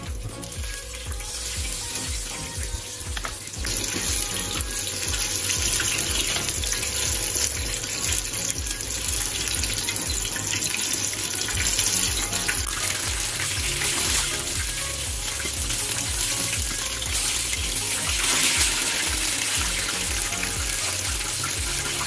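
Breaded meat deep-frying in oil in a stainless steel pot: a dense, steady sizzle that grows louder about four seconds in, with background music and a steady beat underneath.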